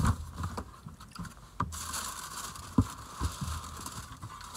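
A cardboard shoe box and its paper wrapping being handled as a pair of shoes is taken out: a few sharp knocks and clicks, then paper rustling and crinkling from about two seconds in.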